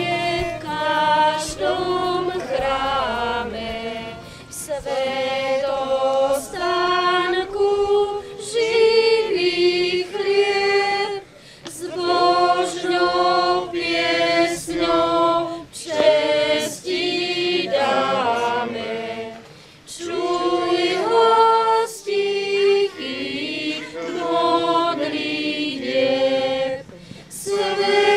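Congregation singing a church hymn without accompaniment, in phrases with short breaks between them; women's voices stand out.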